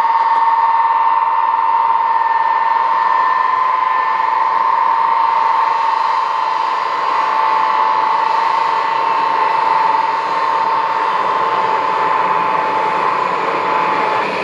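Ilyushin Il-62M's four rear-mounted Soloviev D-30KU turbofans running at low power on the ground: a steady high whine over a broad rush of jet noise.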